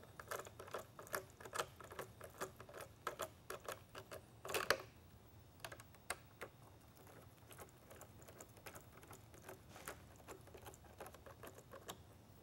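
Hand screwdriver turning a screw into a lightbar module's mounting flange: a run of faint, quick small clicks. There is a louder scrape about four and a half seconds in, then lighter clicking.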